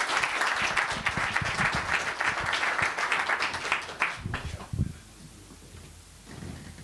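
Audience applauding, dying away about four seconds in. A few low thuds follow as the handheld microphone is knocked against its stand.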